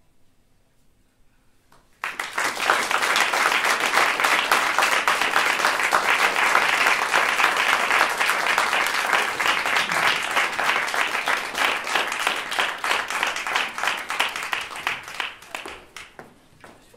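Audience applauding, a dense patter of many hands that starts suddenly about two seconds in, holds steady, and dies away near the end.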